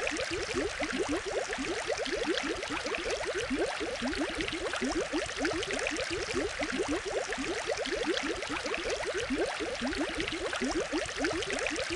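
Aquarium water bubbling and gurgling steadily: a dense, unbroken stream of short rising blips over a soft hiss of water.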